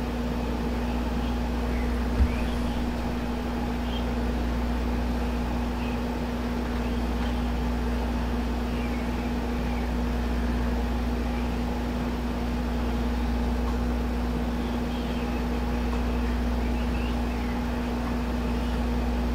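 Steady mechanical hum with a constant low tone over a deep rumble, and one short low thump about two seconds in.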